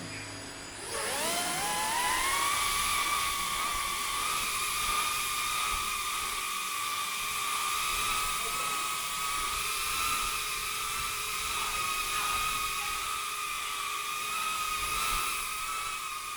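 Brushless motors and propellers of a Beta85X FPV whoop drone spinning up with a rising whine about a second in, then holding a steady high-pitched whir until it stops near the end.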